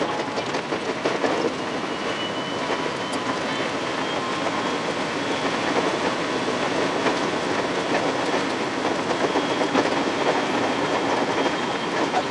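A 521-series electric train running along the track, heard from the driver's cab, its wheels clattering steadily over the rails. A faint high steady whine joins about two seconds in.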